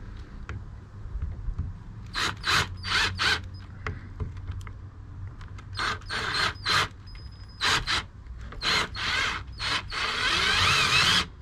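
Power drill boring holes in a wooden bench slat: several short bursts of drilling, then a longer run of about a second near the end.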